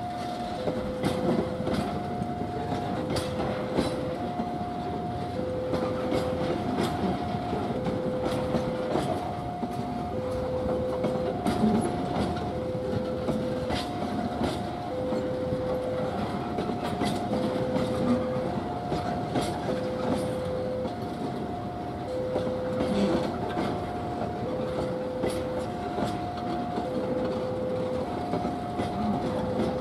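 A long train of fuel tank wagons rolling past, wheels clicking over the rail joints. Through it an electronic warning signal sounds steadily, two tones taking turns, each about a second long.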